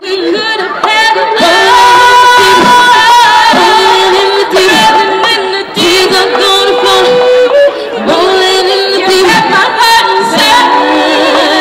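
A female vocal group singing live into headset microphones over a musical backing, with long held notes.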